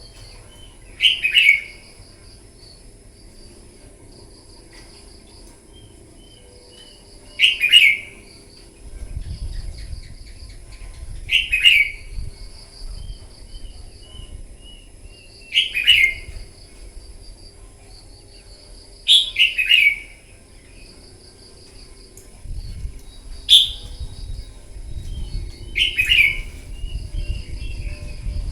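Red-whiskered bulbul singing short, loud phrases, seven in all, about one every three to four seconds, over a steady trilling of insects. A low rumble comes in about a third of the way through.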